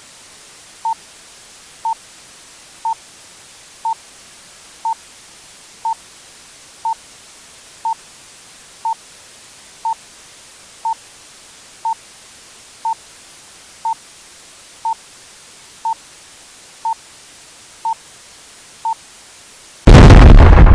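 Countdown-timer sound effect: a short high beep once every second, about twenty in all, over the steady hiss of a burning bomb fuse. Near the end the beeps stop and a loud explosion goes off.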